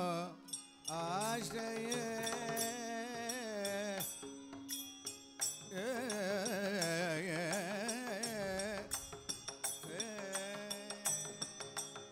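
Carnatic devotional bhajan: a male voice sings long, ornamented phrases, separated by short breaks, over a harmonium's steady drone. Mridangam strokes grow busier near the end.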